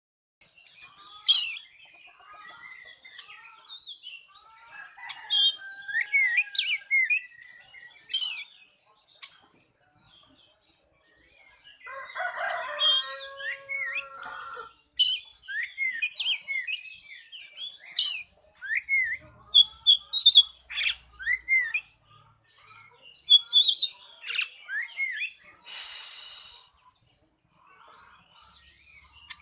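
Oriental magpie-robin (kacer) singing a varied song of short whistles, chirps and swooping notes, with a lower, harsher call around the middle and a rasping call of about a second near the end.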